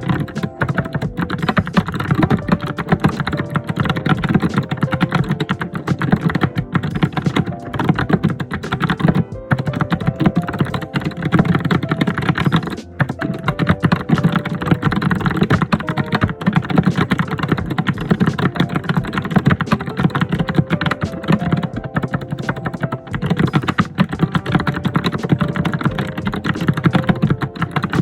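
Fast, busy typing on a computer keyboard: a dense, continuous run of key clicks with a brief pause about halfway through. A soft melody plays faintly underneath.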